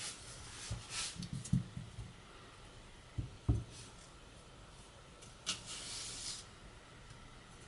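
Masakage Koishi bunka knife cutting an onion on a cutting board: a few soft knocks as the blade meets the board, and hissing slices through the onion, the longest lasting about a second midway.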